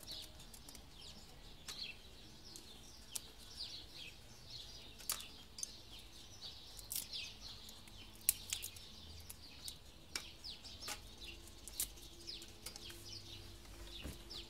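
Small birds chirping and twittering in a continuous string of short, quick falling notes, with scattered sharp clicks and taps from kindling sticks being handled.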